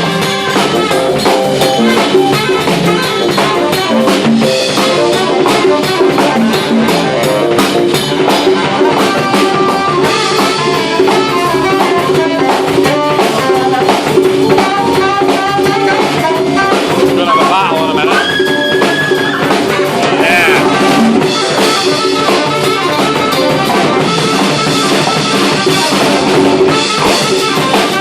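Big band jazz playing, brass over a drum kit keeping time. About two-thirds of the way through, one instrument holds a high note for a second or two.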